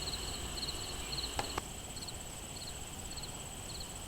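Crickets chirping outdoors: short high chirps repeating evenly, about one every 0.6 s, over a steady high-pitched insect drone. Two short clicks about a second and a half in.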